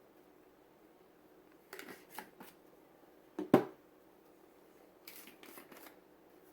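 A spice container being handled and shaken: a few light clicks, one sharp click about three and a half seconds in, then several quick shakes near the end as paprika is shaken out.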